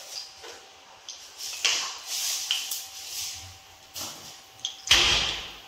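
Mustard seeds sizzling in hot coconut oil in a pan, with hissing spells and sharp crackling pops as they start to splutter. A louder thump comes about five seconds in.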